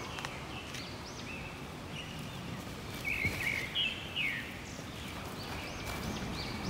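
Birds chirping repeatedly, with short arched calls, over a steady hum of outdoor background noise.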